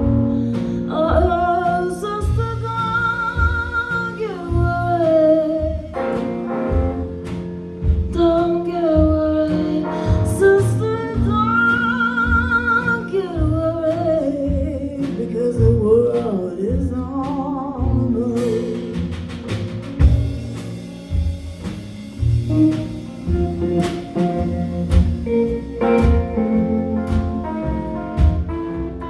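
Live jazz-blues band playing a break between sung verses: a steady bass pulse under a melodic lead that slides and bends between notes. From about 18 seconds in, shorter plucked notes carry the tune.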